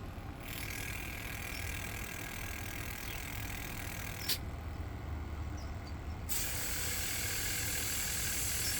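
Aerosol carb cleaner spraying through a fuel injector on a cleaning adapter: a steady hiss starts about half a second in and cuts off with a click around four seconds. A second, louder spray hiss starts about six seconds in and carries on.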